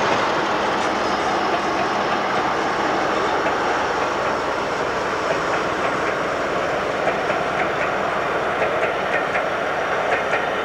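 Diesel locomotive passing under power, its engine running loud and steady as it hauls a rake of passenger coaches, with wheel clicks over rail joints coming through in the second half.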